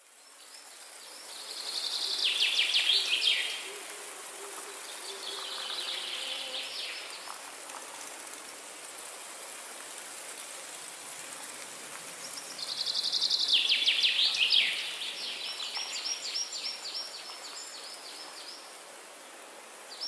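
Forest songbirds singing over a steady high hiss, fading in at the start. Fast descending trills come about two seconds in, again around six seconds, and loudest around thirteen seconds, followed by a run of quick repeated notes.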